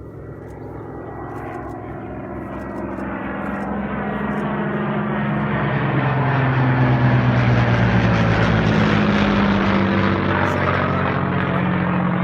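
Propeller airplane engine growing steadily louder over about six seconds, then holding near its loudest, its engine note shifting slightly in pitch.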